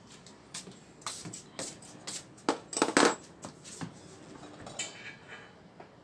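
Metal open-end wrenches clinking and clattering as they are handled and set down on a refrigerator's top: a run of sharp clicks, loudest about three seconds in, with a short metallic ring near the end.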